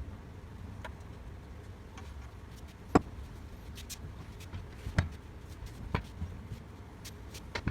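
Scattered sharp knocks and clicks of hand tools and loose parts while a cylinder lawn mower is being unbolted, the loudest about three seconds in and others around five, six and near the end, over a low steady rumble.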